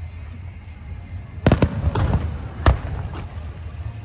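Fireworks shells bursting overhead: two quick bangs about a second and a half in, then a louder single bang a second later, each followed by a rumbling echo.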